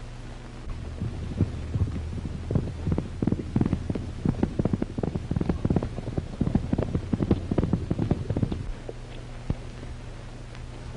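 A horse galloping: a fast, irregular run of dull hoofbeats starts about a second in and dies away near the end. Under it runs the steady low hum of an old film soundtrack.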